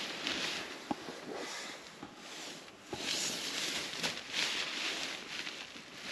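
Nylon tent and sleeping-bag fabric rustling as gear is handled, swelling and fading in bursts, with a sharp click about a second in and another near three seconds.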